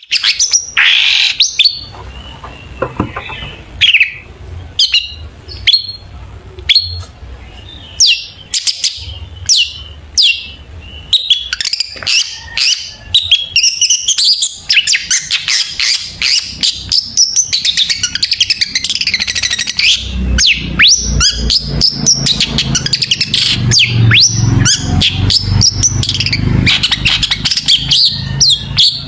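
Long-tailed shrike (cendet) singing. For the first ten seconds it gives sharp, downward-sweeping calls about once a second, then from about eleven seconds it breaks into a dense, rapid chattering song full of mimicked phrases of other birds. A low rumble runs underneath from about twenty seconds in.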